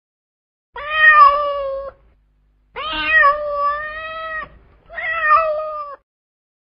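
Kitten meowing three times, each a drawn-out, high-pitched call, the middle one the longest.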